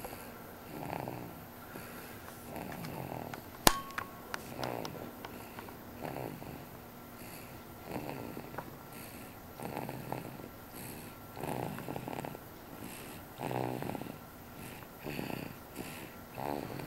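Snoring: one rasping breath about every two seconds. A single sharp click sounds about four seconds in.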